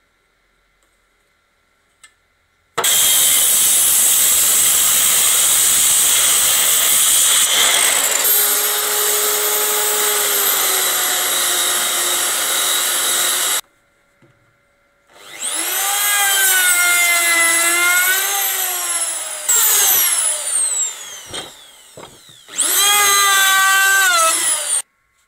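A hand-held power tool working pine for about eleven seconds with a loud, dense hiss. Then an electric wood router spins up with a high whine that wavers in pitch as it cuts, winds down with a falling whine, and runs again for about two seconds before cutting off.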